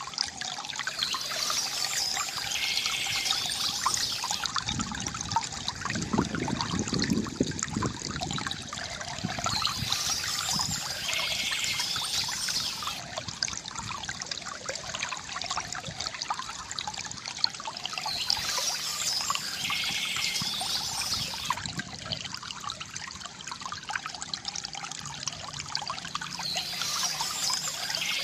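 Small stream trickling and splashing steadily, with a deeper burble for a few seconds near the start. A bird sings a short high phrase over it, repeating about every eight or nine seconds.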